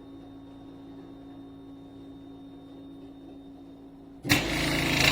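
Philips 3300 fully automatic espresso machine running with a steady hum, then a sudden, much louder rushing noise about four seconds in that lasts a little over a second.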